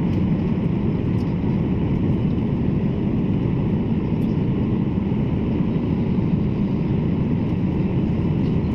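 Steady cabin noise of a jet airliner descending toward landing: engine and airflow noise heard from inside the cabin, even and unchanging throughout.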